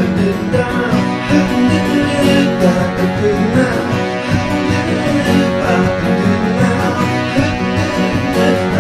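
Background song in an instrumental break: guitar-led music with a steady strum, no singing.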